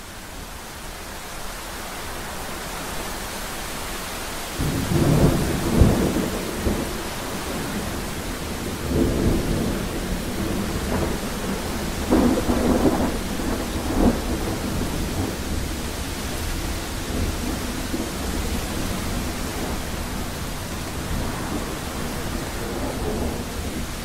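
Thunderstorm: steady rain hiss that swells over the first few seconds, then rolling thunder. A loud rumble of thunder comes about five seconds in, with further rolls around nine seconds and again from about twelve to fourteen seconds.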